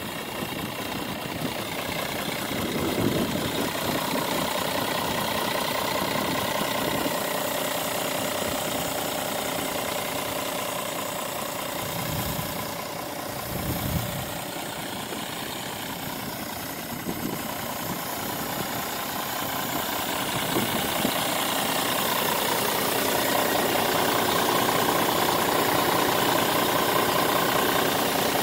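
Scania R450 truck's 13-litre straight-six diesel idling steadily, growing louder near the end as the sound comes closer to the engine.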